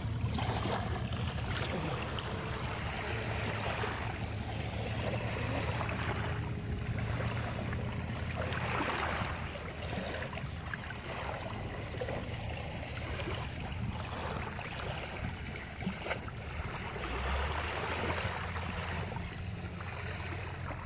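Shallow surf washing over sand, swelling and fading every few seconds, over a steady low rumble.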